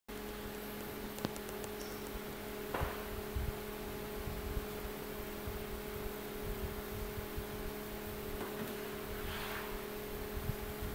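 Steady electrical hum with a constant hiss, and a few faint clicks and rustles.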